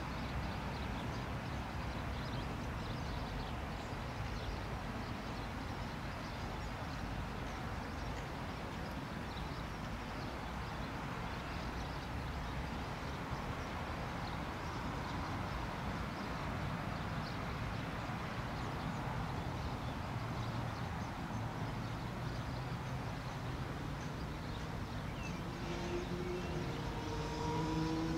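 Airbus A320 jet engines running at idle as the airliner taxis, a steady hum and rush. In the last few seconds a slightly rising whine comes in and the sound grows louder as the engines begin to spool up for takeoff.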